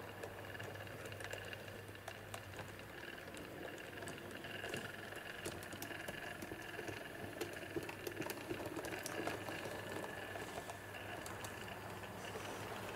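HO scale model train running on its track: a faint, steady small electric motor whine with light, irregular clicking from the wheels on the rails.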